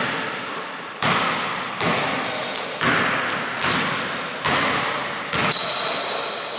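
Basketball bouncing on a hardwood court in a large echoing hall, knocks about once a second, with high sneaker squeaks from players moving.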